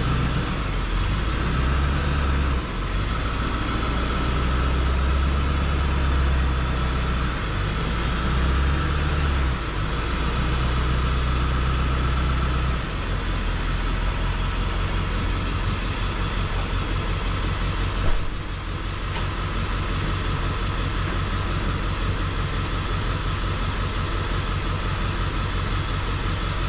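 Vehicle engine and road noise on a drive. About halfway through, the low hum changes to an even, pulsing engine note, and a single sharp knock sounds about two-thirds of the way in.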